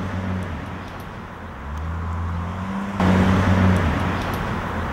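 Outdoor traffic noise: a steady low hum of car engines over road noise, which jumps abruptly louder about three seconds in.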